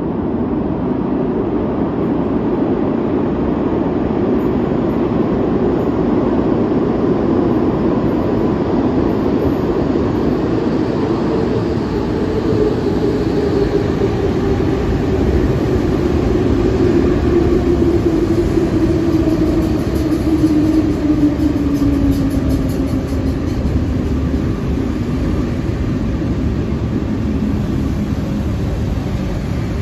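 MI79 electric multiple unit train approaching, then running in along the platform and braking. A loud steady rumble of wheels and motors is heard throughout, with a tone that falls slowly in pitch as the train slows.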